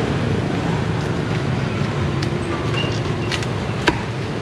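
Steady low rumble of street traffic. A few sharp knocks of a cleaver cutting through roast pork onto a wooden board stand out above it, the sharpest about four seconds in.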